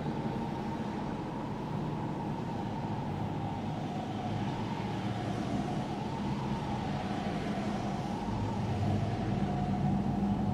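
Road traffic: cars passing on a road, a steady rushing noise with a faint wavering tone above it. A vehicle comes closer and louder in the last few seconds.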